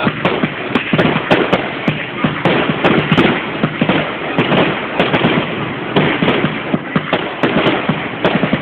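Fireworks going off in quick succession: a steady run of sharp bangs and cracks, several a second, with crackling in between as shots rise and burst.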